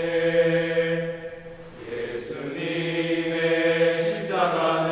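Male choir singing a slow hymn in long held notes. The sound dips briefly about two seconds in, and the pitch shifts a little after four seconds.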